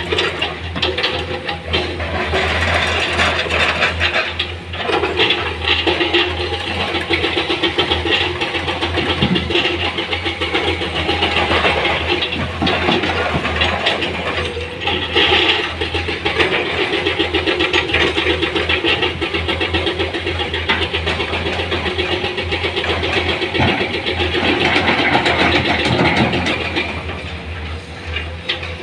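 Heavy diesel engine of earthmoving equipment running steadily with a fast, even clatter and a low hum underneath, with a few brief knocks.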